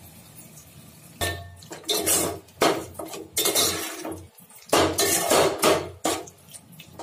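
Metal spoon scraping and clanking against the side and bottom of an aluminium pot while stirring chicken pieces, in irregular strokes that start about a second in.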